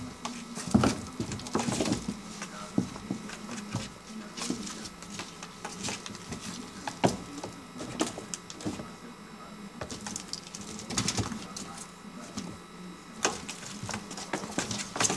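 Kitten playing in a cardboard box: claws scratching and paws thumping on the cardboard in irregular short scuffles, some louder knocks among them.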